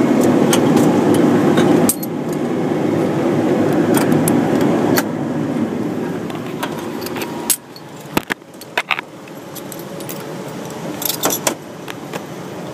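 Bucket truck's engine running steadily, dropping in level in steps about two and five seconds in and cutting off about seven and a half seconds in; then sharp clicks and metallic jingling.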